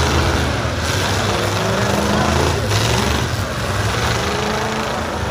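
Engines of full-size demolition derby cars running and revving together, a loud continuous mix with the pitch rising and falling.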